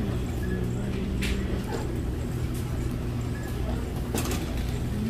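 Wire shopping cart rolling across a store floor: a steady low rumble from the wheels, with a couple of sharp clicks.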